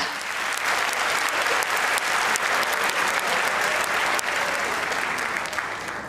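Studio audience applauding, a dense patter of many hands clapping, holding steady and then tapering off near the end.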